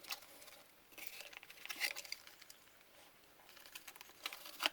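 Faint clicks and rustles of a space heater's plastic housing and wiring being handled while it is put back together, a few light knocks about a second in and more near the end.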